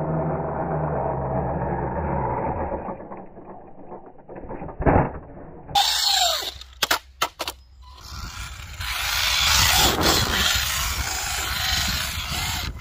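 Small electric RC trike running on concrete: a steady motor hum at first, a thump and a few sharp knocks around the middle, then a steady rushing hiss of tyres and movement.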